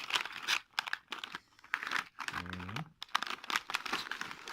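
Plastic packaging crinkling and rustling in irregular, crackly bursts as a small parcel item is handled and unwrapped.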